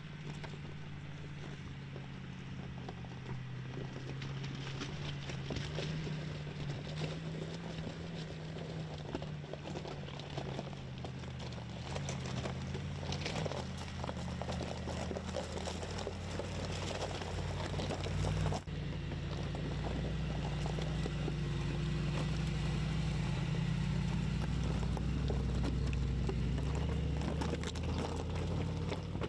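Mercedes G-Class V8 engine running at low, steady revs as the SUV crawls along a gravel track, with tyres crunching over loose stones. About two thirds of the way through the sound cuts abruptly to a deeper, slightly louder engine hum.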